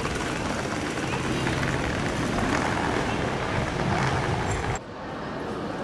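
Busy city ambience: a steady wash of traffic noise with people talking in the background, dropping suddenly to a quieter, duller hum about five seconds in.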